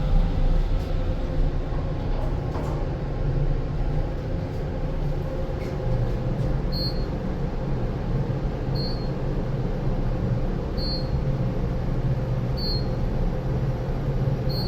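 Kone MonoSpace traction elevator car in travel: a steady low hum and rumble that strengthens about six seconds in, with a few clicks in the first three seconds. From about seven seconds in, a short high beep sounds about every two seconds.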